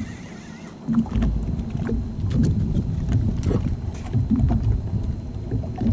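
Wind buffeting the microphone and small waves slapping the hull of a drifting jet ski, a low uneven rumble that picks up about a second in, with irregular knocks and thumps throughout.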